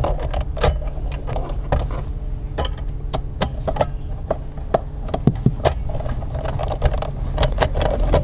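A Phillips screwdriver backing a screw out of a first-generation Chevrolet Cruze's plastic centre-console armrest, with scattered clicks and rattles of the screw, the tool and the console parts being handled. A steady low hum runs underneath.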